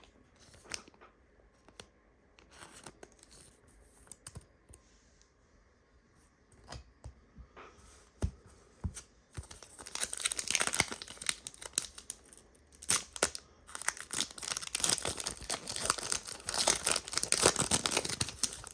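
A Panini Prizm basketball card pack's foil wrapper being torn open and crinkled: a few seconds of faint handling clicks, then from about halfway in a loud, dense stretch of crackling and tearing.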